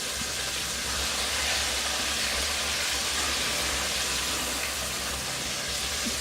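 Butter-and-flour roux sizzling steadily in a pan as it cooks off the raw flour taste, an even hiss.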